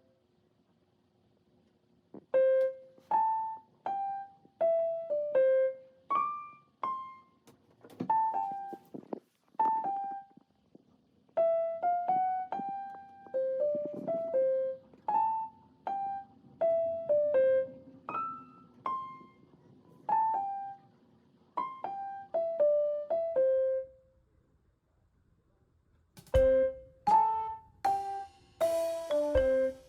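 Background music: a light, unhurried melody of single piano-like notes, each ringing and fading. It pauses for about two seconds at the start and again near the end, where a short thump comes in before the melody resumes.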